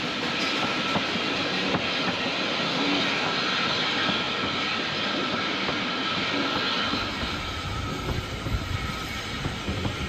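Ride noise aboard a narrow-gauge steam train's carriage: a steady rush and rattle of the coach and wheels on the track, with scattered sharp clicks. About seven seconds in, a deeper, uneven rumble takes over.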